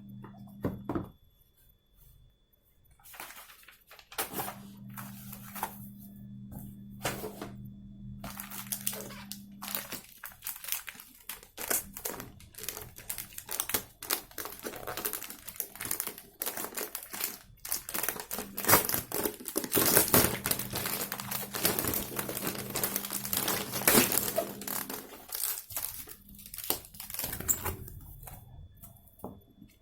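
Packaging being crinkled, rustled and torn open by hand, in irregular bursts that build to the loudest stretch a little past the middle and die away near the end.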